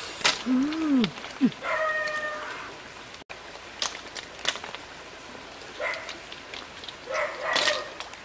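Hard clicks of apple snail shells being picked up and knocked together on a wet mud bank. Several short vocal calls that rise and fall in pitch come in the first two seconds or so.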